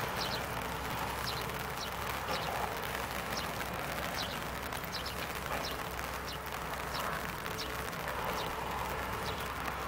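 Hyundai 140W wheeled excavator's diesel engine running steadily as it digs among a rock pile, with small birds giving short, high chirps over it again and again.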